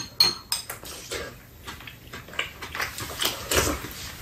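Metal spoons and chopsticks clink against dishes a few times near the start, then close-up chewing and eating sounds of people eating a meal.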